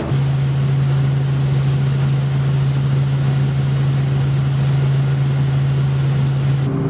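Light helicopter in flight, heard from inside the cabin: a steady engine and rotor drone, one even hum over a constant wash of noise, whose pitch changes near the end.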